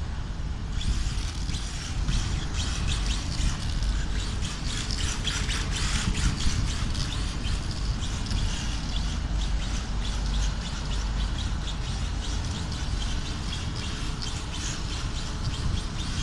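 1/10-scale brushless electric RC car driving on concrete, its motor whining high and its tyres scrubbing, over a steady low rumble.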